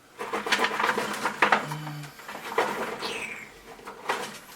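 Dogwood twigs rustling and crackling as one is pulled out and bent by hand, in irregular bursts of sharp clicks. A brief falling whistle sounds about three seconds in.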